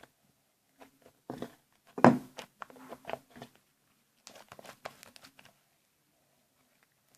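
Sticky slime being kneaded and pulled by hand, giving irregular wet clicks and crackles, loudest about two seconds in.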